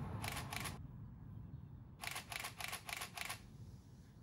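Camera shutter clicks in quick bursts: two clicks near the start, then a rapid run of five about two seconds in. A low rumble fades underneath.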